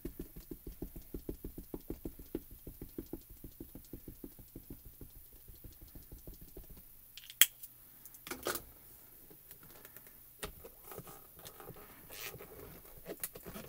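Small ink pad dabbed rapidly and repeatedly onto a clear stamp, re-inking it because the first impression was too light: a run of soft, even taps, several a second. About seven seconds in, a single sharp clack and then a duller knock as the clear acrylic door of the stamping tool is shut onto the card.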